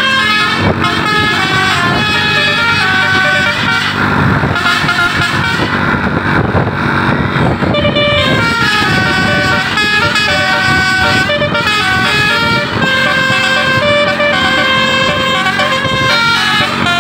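Bus 'telolet basuri' multi-tone musical air horn playing a tune in stepped notes, held and changing pitch. Bus engine and road noise swell beneath it around the middle.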